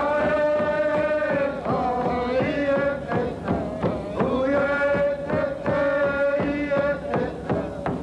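Ceremonial chant sung in long held notes, over steady drum beats about three a second.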